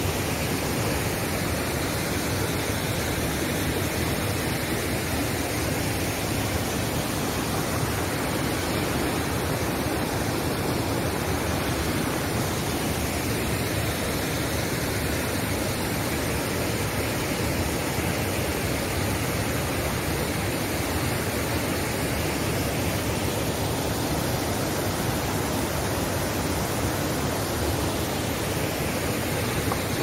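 Steady rush of water over the rock cascades and rapids of Hundru Falls, an even hiss that does not change.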